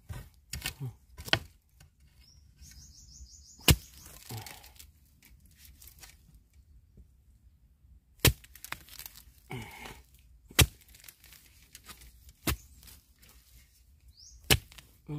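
Sharp single cracks, about eight of them spaced one to two seconds apart, from a freshly dug bamboo shoot being handled. A bird gives a short run of high chirps about two seconds in and a rising chirp near the end.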